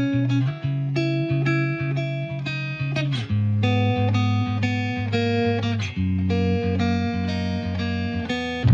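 Background music led by plucked guitar, with a steady rhythm of notes and chord changes every few seconds.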